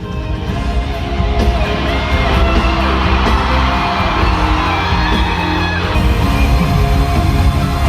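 Loud pop music played live over concert speakers, with a heavy bass beat and some yelling from the crowd.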